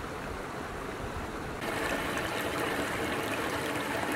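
Shallow stream water running and trickling over pebbles and gravel. About a second and a half in, it steps up to a louder, brighter trickle with fine splashes.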